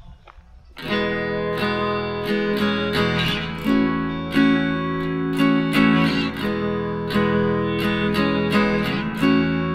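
Background music: an acoustic guitar strumming, starting suddenly about a second in.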